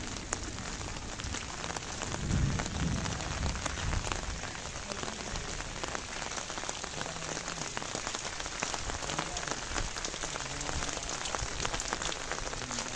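Heavy rain falling steadily, with many sharp drop ticks close by on a small umbrella held overhead.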